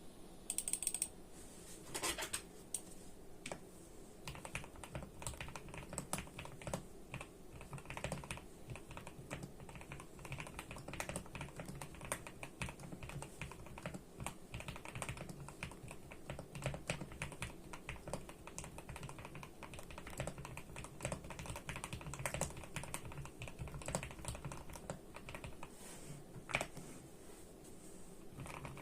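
Continuous typing on a GMK 87 mechanical keyboard with hand-lubed Gateron Milky Yellow Pro linear switches: an irregular, steady run of keystrokes, with a few louder strokes about a second in and near the end.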